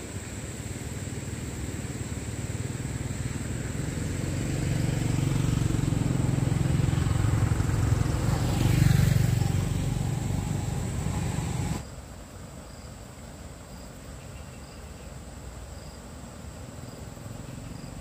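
A motor vehicle growing steadily louder as it approaches and passes about nine seconds in. The sound cuts off abruptly near twelve seconds, leaving insects chirping with a regular high pip.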